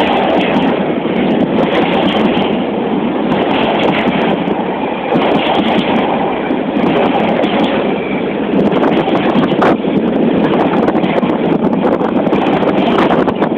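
Class 66 diesel locomotive's two-stroke V12 engine running, a loud steady noisy rumble with scattered crackles on top.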